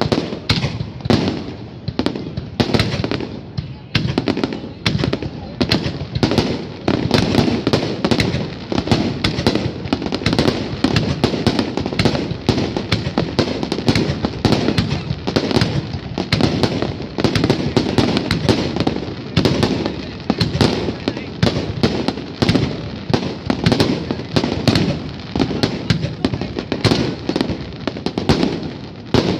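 Aerial fireworks display: a dense, unbroken barrage of shell bursts, many sharp bangs a second.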